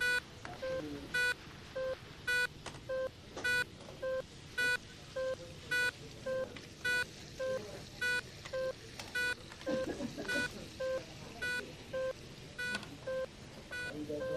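Hospital bedside monitor beeping in a steady rhythm, a little under two beeps a second, alternating between a plain lower tone and a brighter, sharper one.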